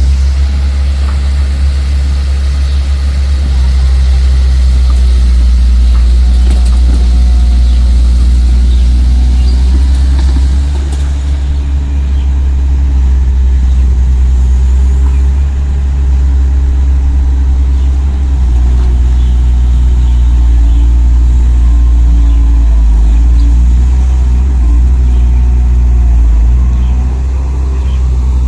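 Loud, steady engine rumble of the kind an RC model truck's sound module plays, a simulated diesel idling with small rises and falls in level.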